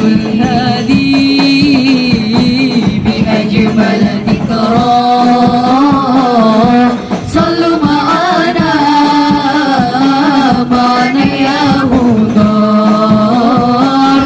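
A woman singing sholawat, an Arabic devotional song, in long ornamented melismatic lines with no clear words. Percussion accompanies her throughout.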